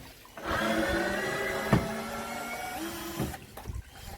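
A small electric motor runs for about three seconds with a steady whine, then cuts off. Its pitch steps up slightly near the end, and there is one sharp knock partway through.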